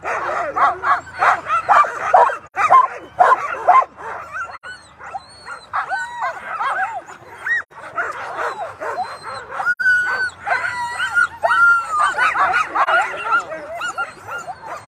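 A harnessed team of Alaskan huskies barking and yipping all at once, many dogs calling over each other without a break: sled dogs excited and eager to run at a race start.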